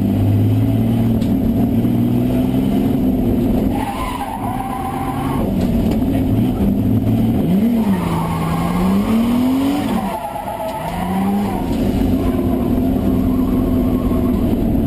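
BMW E30's engine heard from inside the cabin, running steadily, then revving up and down several times as the car drifts. The tyres squeal about four seconds in and again from about eight to eleven seconds in.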